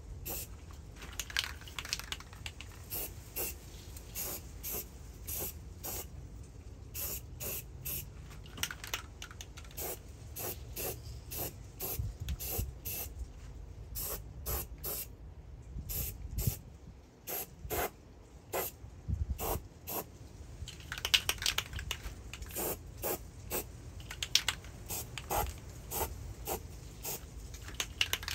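Aerosol spray can spraying rust-preventive paint onto freshly cut sheet-metal edges, in many short hissing bursts with a few longer sprays.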